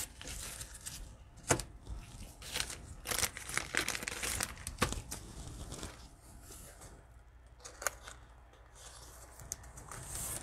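A plastic cellophane wrapper on a trading-card cello pack being torn open and crinkled by hands in nitrile gloves, with many sharp crackles. About six seconds in it goes quieter, leaving only a few clicks as the cards are handled.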